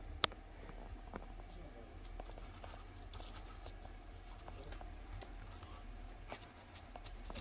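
Handling of a coin album with plastic slides: one sharp click about a quarter second in, then faint scattered taps and light rustling.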